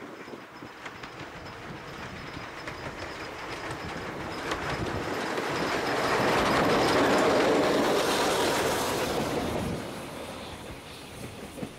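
Double-headed steam train, two 0-6-0 saddle tank locomotives (Hunslet Austerity No. 22 and Hudswell Clarke Wissington), passing on the rails: the sound builds to a peak about seven seconds in and falls away near the end.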